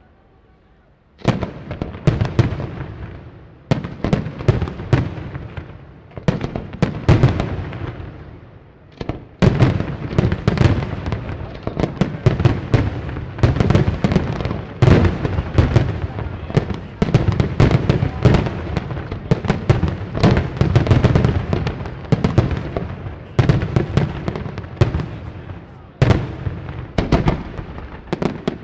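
Aerial firework shells bursting in quick succession, sharp booms and cracks over a rolling rumble. The barrage starts about a second in, eases briefly about eight seconds in, then builds into a near-continuous volley that thins out near the end.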